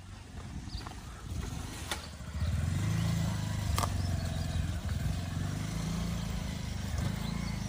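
Motorcycle engine running at low revs as the bike rides over rocky ground. It gets louder about two seconds in, and its note rises and falls with the throttle. A single sharp click comes near the middle.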